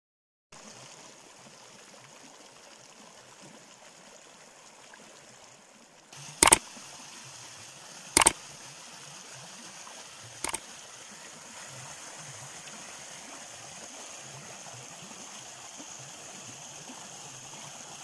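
Shallow stream running over rock ledges in small cascades, a steady rush of water that grows a little louder about six seconds in. Three sharp clicks, louder than the water, come about a third of the way through and twice more over the next four seconds.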